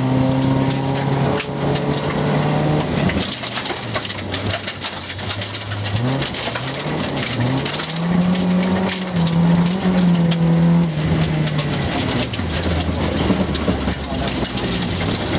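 Rally-prepared Volvo 940's engine heard from inside the cabin on a gravel stage, its note rising and falling with throttle and gear changes and dropping to a lower, steadier note near the end. Loose gravel crackles and pings against the underside throughout.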